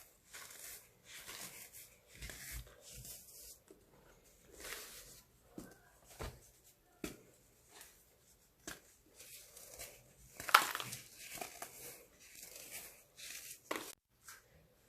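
Dried baking soda slabs being crushed: irregular crunching and crumbling with sharp cracks in between, and one loudest crunch about two-thirds of the way through.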